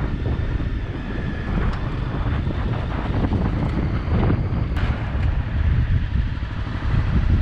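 Wind buffeting the microphone on a riding Honda CRF250L dual-sport motorcycle, with its single-cylinder engine and tyres on a muddy, stony track underneath, and a few sharp clicks from stones.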